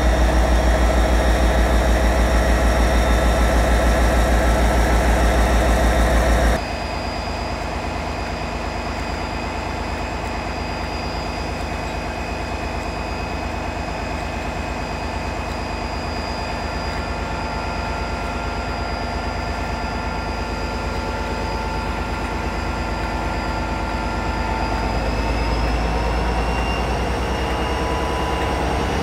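Class 57 diesel locomotive's EMD two-stroke V12 engine idling at close range, with a heavy low rumble and a steady whine. About six seconds in the sound drops suddenly to a quieter idle, and near the end the engine note rises as the locomotive powers up.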